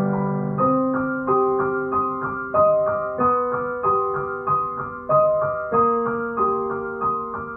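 Solo upright piano playing a slow melody. A new note is struck about every two-thirds of a second over held lower notes, and each one rings and fades before the next.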